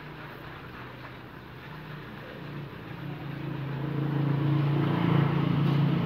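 A motor vehicle engine running with a steady low hum that grows louder from about halfway through.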